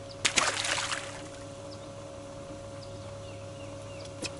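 A short splash of water about a quarter second in, lasting under a second, over the steady hum of an electric boat motor, with a sharp click near the end and faint bird chirps.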